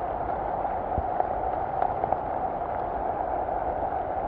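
Heavy rain falling steadily on forest leaves: an even, unbroken hiss, with a soft thump about a second in.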